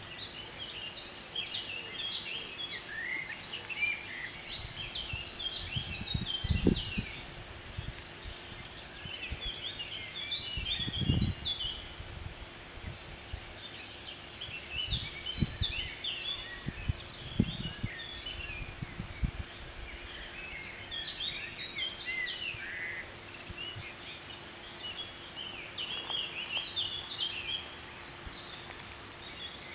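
Small birds singing in the trees, with many short chirps and trills. There is a faint steady hum, and several low rumbles stand out loudest around a quarter and a third of the way in and again past the middle.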